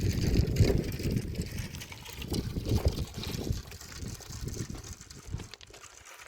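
Irregular low rumbling gusts of wind buffeting the microphone, easing off near the end.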